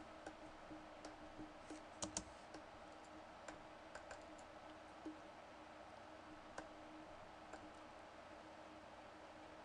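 Quiet, scattered clicks of a computer mouse and keyboard, about a dozen, the two loudest about two seconds in, over a faint steady hum and hiss.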